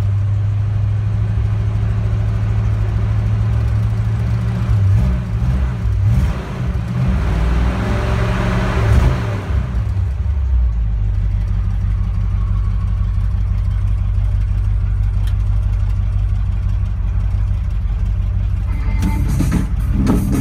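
1957 Chevrolet pickup's engine idling, revved briefly between about four and ten seconds in, then settling back to a steady idle. Near the end, music starts from the truck's radio.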